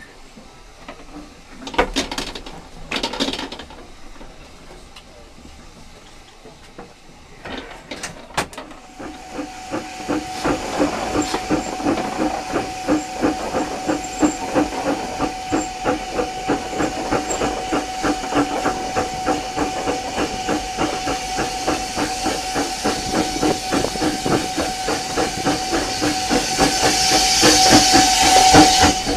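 Steam train getting under way: a couple of short loud bursts about two and three seconds in, then from about nine seconds a fast, even beat of steam exhaust with hiss, over a steady high ringing tone. It grows louder near the end as the train passes under a stone bridge.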